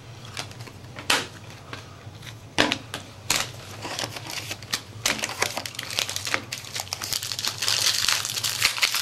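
Crinkling and crackling of foil-wrapped trading-card packs being pulled from a hobby box and handled: a few sharp crackles at first, then denser, louder crinkling from about halfway on.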